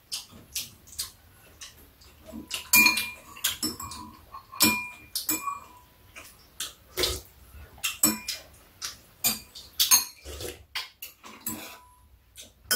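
Metal spoons and chopsticks clinking and tapping irregularly against ceramic bowls and a stainless steel plate, a few clinks ringing briefly, along with close-up chewing and lip-smacking of people eating grilled fish.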